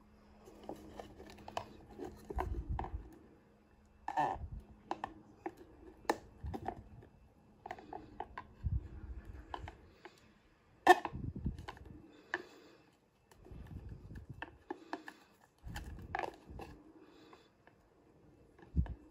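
Handling noises: scattered clicks, taps and soft thumps of a clear plastic cup and a ballpoint pen knocking and scraping against a glass-fronted tarantula enclosure, with one sharp click a little past halfway.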